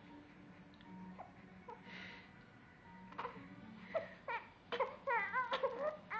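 Newborn baby fussing into a cry: short whimpers from about three seconds in build into louder, wavering crying near the end.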